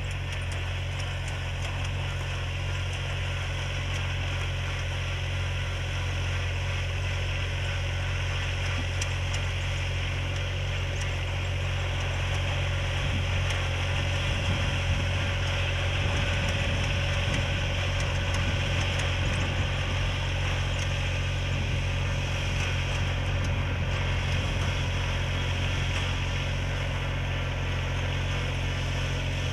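Engine of a Sakpattana FourJet self-propelled boom sprayer running steadily as it drives through the crop, spraying.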